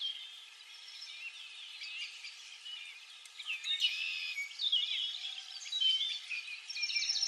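Several songbirds chirping and singing: a busy run of short calls and trills.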